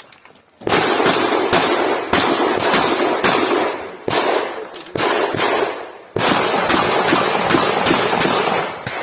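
Shotgun firing a fast string of loud shots, about two to three a second, each with a short echo. There are brief pauses about four and six seconds in.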